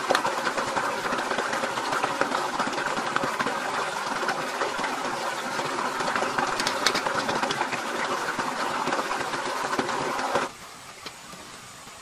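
Shallow stream water gurgling around a metal kettle as it is dipped and filled. The sound is steady and cuts off suddenly about ten and a half seconds in.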